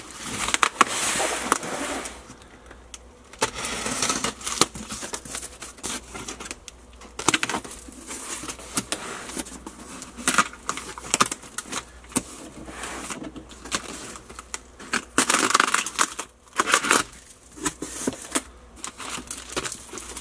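Packing material and a cardboard shipping box being handled during unpacking: crinkling and rustling with many scattered clicks and light knocks.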